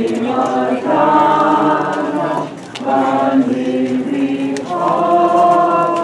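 A crowd of people singing a hymn together, long held notes in phrases with short breaks between them.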